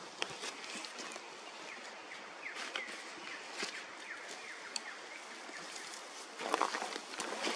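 Bush ambience: a steady hiss with scattered small clicks and a few short, falling bird chirps. Near the end comes a louder burst of rustling and crackling in the brush.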